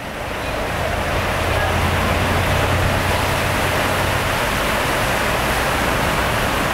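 Steady rushing noise of a railway station, with a low hum underneath that drops away about four seconds in.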